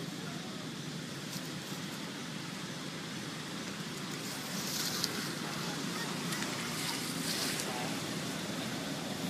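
Steady outdoor background noise, a low rumble like distant traffic or wind, with two brief hissy rustles about halfway through and again a couple of seconds later.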